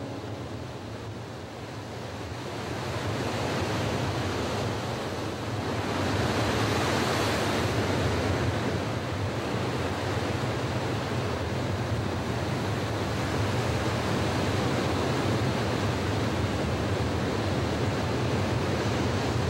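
Steady rushing noise that builds over the first few seconds, surges about six to eight seconds in, then holds steady.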